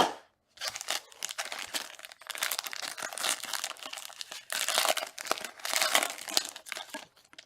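Plastic wrapping on a box of trading cards being crinkled and torn open: a dense, continuous crackle, louder in two stretches in the middle and near the end.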